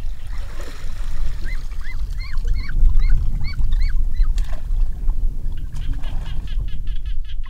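A duck calling repeatedly, a quick run of about eight short calls, as it is caught by hand in a muddy pond, with water splashing and sloshing around it.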